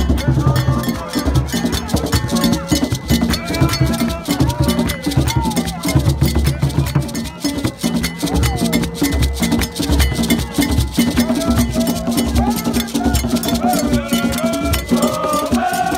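Borborbor music played live: hand drums and a metal bell beat a fast, steady rhythm while a crowd of voices sings along.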